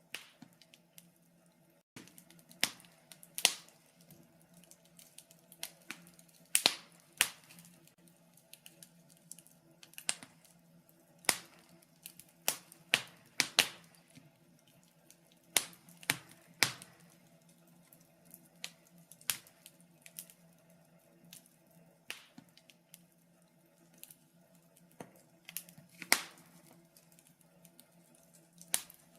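Wood fire in a fireplace crackling: irregular sharp pops and snaps, some much louder than others, spaced unevenly about a second or two apart.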